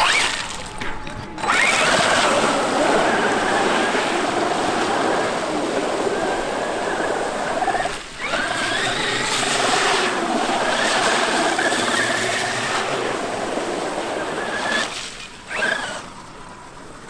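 Electric RC monster truck (Traxxas X-Maxx) driving, its brushless motor and drivetrain whining. The pitch climbs as it accelerates, rises and falls with the throttle, and breaks off briefly about halfway before climbing again, with tyre and ground noise underneath.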